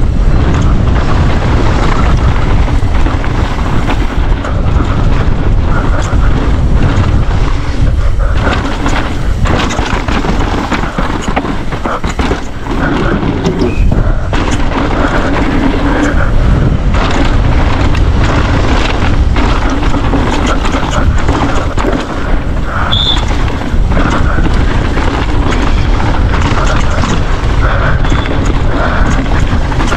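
Downhill mountain bike riding a dry dirt course: wind buffets the rider-mounted microphone over the tyres on loose dirt, with frequent knocks and rattles from the bike over bumps.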